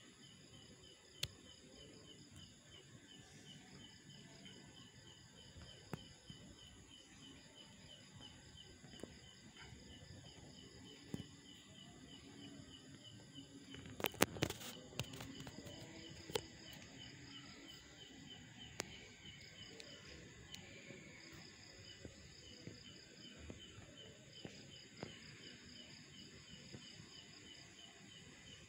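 Crickets chirping in a steady, even rhythm. A brief cluster of sharp clicks and knocks about halfway through, with a few single ticks scattered elsewhere.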